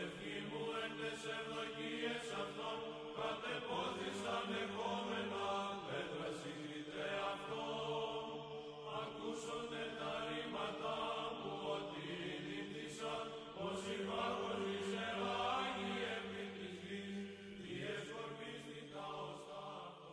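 Slow sacred chant sung by voices in long, held notes, fading out near the end.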